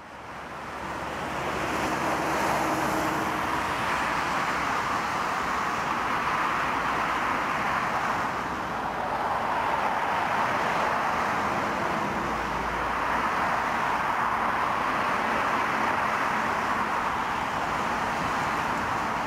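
Airbus A350-900's Rolls-Royce Trent XWB turbofans on final approach, a steady jet rush that holds level throughout.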